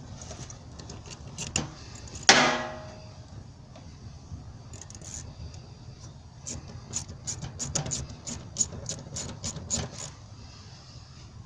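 A metal clang with a short ringing decay about two seconds in, then a run of irregular light clicks and taps from hand tools being worked on metal parts.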